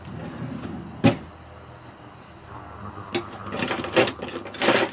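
Cookware and utensils being handled: a sharp knock about a second in, then a few clicks and a short noisy scrape or clatter near the end, over a low background hum.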